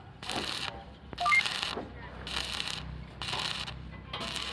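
Welding arc crackling in short bursts, each about half a second long, repeating about once a second with quiet gaps between them.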